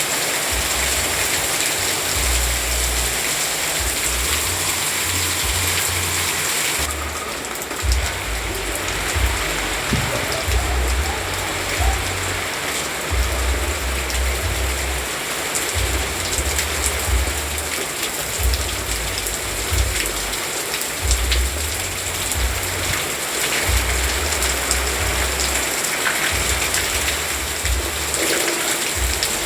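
Steady rain falling and pattering on surfaces, a dense even hiss with many small drop ticks, over a low rumble that comes and goes.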